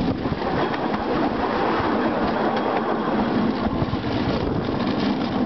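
Homemade rail car running along narrow-gauge track, a steady rumble of its wheels on the rails.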